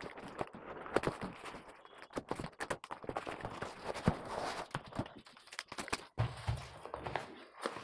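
Cardboard shipping box and packaging being handled on a tiled floor: irregular scrapes, rustles and knocks as a badminton racket in its cover is pulled out.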